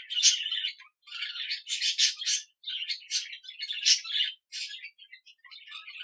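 Budgerigar chattering: quick chirps, warbles and sharp clicky notes in several short phrases with brief pauses between them, cutting off suddenly at the very end.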